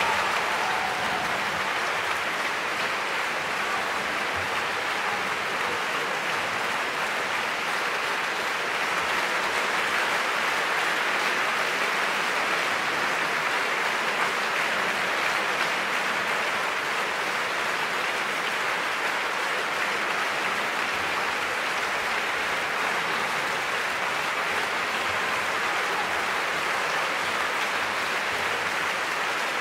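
Concert-hall audience applauding steadily, a dense even clapping.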